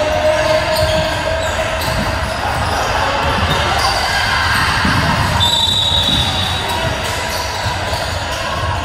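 Basketball game sounds: a ball bouncing on the court in repeated thuds over a steady din of voices in a large hall, with a short high steady tone about five and a half seconds in.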